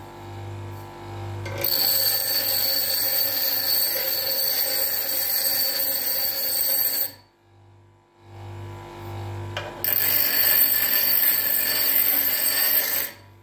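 Parkside PDOS 200 C2 bench grinder's wheel grinding a water pipe, with a high-pitched ringing screech of metal on the wheel. There are two stretches, about five seconds and then about three seconds, with a short pause between, over the low hum of the grinder's motor.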